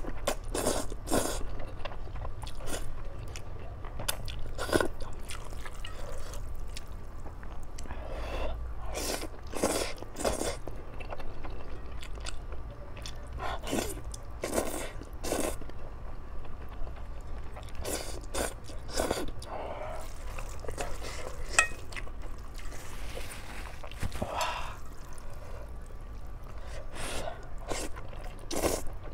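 A person slurping up mouthfuls of saucy buldak-style spicy instant noodles and chewing them, in repeated wet slurps with chewing between.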